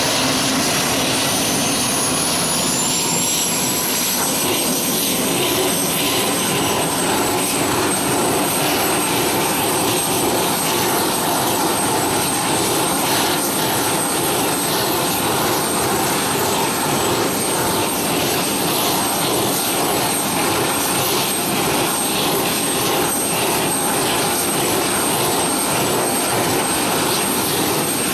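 F-16 fighter jets' turbofan engines running on the ground: a steady rumble and rush with a high whine that rises in pitch over the first few seconds, then holds steady.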